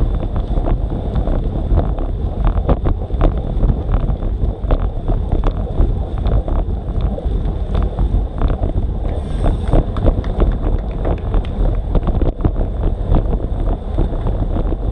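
Wind buffeting the microphone of a bike-mounted action camera at road-bike riding speed, with tyre and road noise on a wet road and frequent small knocks and rattles.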